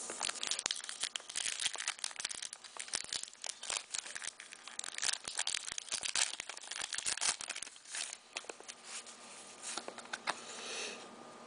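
Hockey card pack wrapper crinkling and tearing as it is ripped open by hand, in a dense run of crackles that dies down about eight seconds in.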